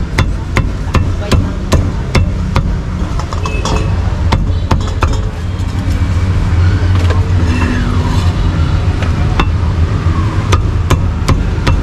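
Meat cleaver chopping roasted meat on a chopping block, sharp strikes about two or three a second that thin out in the middle and pick up again near the end, over a steady low hum.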